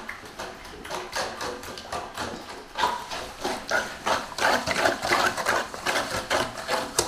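A fork beating eggs into milk in a large metal basin, clattering against the metal in a quick, steady rhythm.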